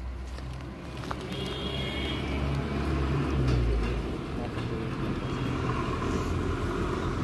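Motor vehicle engine running, a steady low rumble that is loudest about three to four seconds in.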